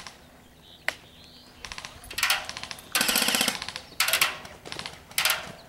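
Airsoft guns firing on full auto: a single sharp shot about a second in, then several short bursts of rapid, evenly spaced clicking shots, the longest lasting about half a second.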